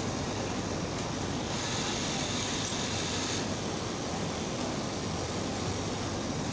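Steady hum and hiss of garment factory machinery on a cutting floor. A higher hiss rises over it from about a second and a half in and lasts about two seconds.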